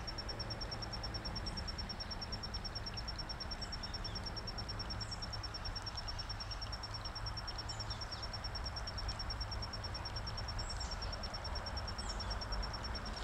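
An insect chirping in a high, rapid, even pulse without a break, over the steady rushing of a small woodland stream. A few faint, short bird chirps come and go.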